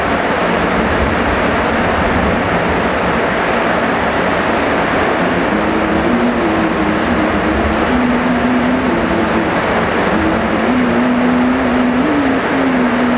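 Heavy rain falling in a steady, dense hiss. From about five seconds in, a low droning hum joins it and wavers slightly in pitch.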